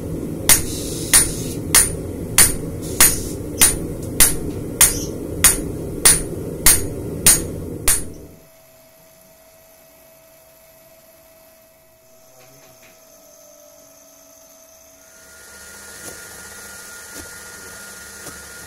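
Hand hammer forging a red-hot Böhler N695 steel knife blade on an anvil: about thirteen sharp, evenly spaced blows, roughly one every 0.6 seconds, over the steady roar of the coal forge. The noise stops abruptly about eight seconds in, leaving a quiet background with a faint steady tone and a few faint ticks near the end.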